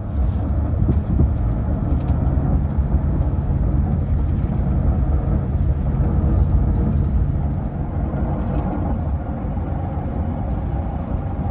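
Cabin noise from the back seat of a sheriff's patrol car on the road: a steady low rumble of engine and road noise.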